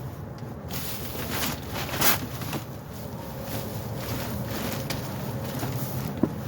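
Rummaging through a dumpster: rustling and shifting of bags and boxes over a steady low hum, with a sharp click near the end.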